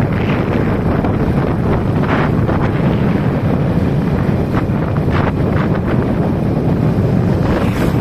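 Wind buffeting the microphone of a camera moving along a road, a steady loud rumble with a few brief stronger gusts.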